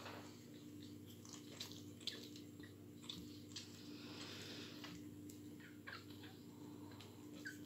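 Faint small squeaks and rustling from 10-day-old pug puppies being handled, over a steady low hum.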